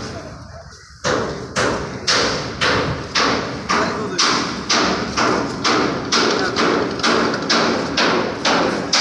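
Sharp knocks in a steady rhythm, about two a second, each ringing on briefly; they start about a second in.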